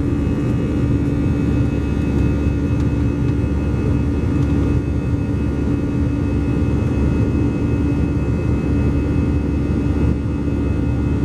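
Cabin noise of an Airbus A321 with CFM56-5B turbofan engines, heard inside the cabin beside the wing while climbing after takeoff: a steady, unbroken noise of engine and airflow with a constant low hum and a faint higher whine.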